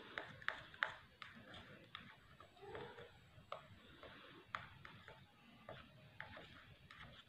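Plastic spatula stirring aloe vera gel sanitizer mixture in a small plastic bowl, tapping and clicking lightly against the bowl's side. The clicks are faint and irregular, about two a second at first and sparser later.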